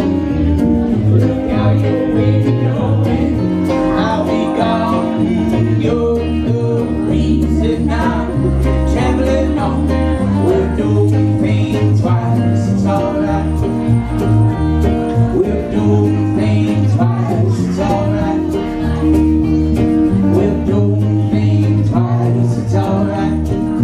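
Live acoustic band playing a song: a woman singing at the microphone over acoustic guitar and upright double bass.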